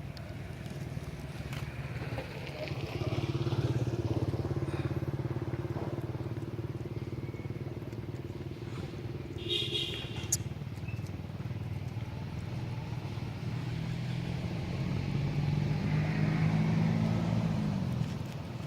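Motor vehicle engines running, swelling twice as vehicles pass, with a brief high-pitched sound about ten seconds in.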